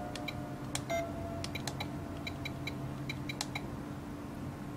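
FlySky FS-i6 radio transmitter giving short high beeps as its menu buttons are pressed, about a dozen key beeps, some in quick runs, over a steady low hum.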